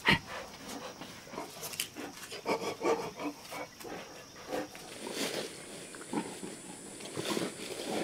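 Sloth bear sounds: a run of short, irregular calls and snuffling breaths.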